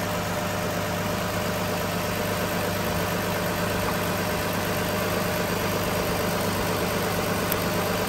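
2016 Lexus RX350's V6 engine idling steadily with the air conditioning running at full.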